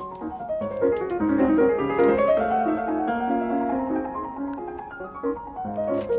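Piano music: a piano plays a flowing run of notes that falls and then climbs back up.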